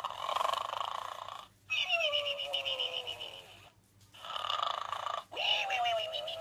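Gund Arnold snoring pig plush toy playing its snore sound twice. Each snore is a rasping in-breath followed by a falling whistle on the out-breath.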